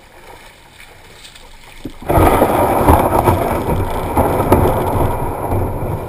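Kayak hull grinding and scraping up onto a pebble and shell beach: a loud, coarse crunching that starts suddenly about two seconds in and goes on as the boat slides ashore, over the low wash of small waves.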